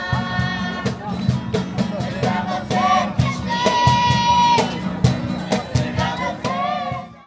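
Background music with a steady beat and a gliding melody line; it cuts off abruptly near the end.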